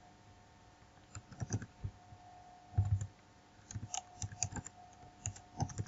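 Computer keyboard typing: scattered key clicks in short runs with gaps between.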